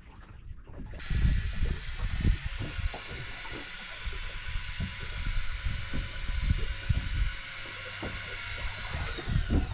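A steady hiss of wind and sea wash that starts abruptly about a second in, with irregular low rumbles of wind buffeting the microphone.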